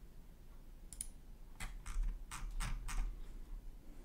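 Computer keyboard and mouse clicks: a single click about a second in, then a quick run of about six clicks through the middle, over a faint low hum.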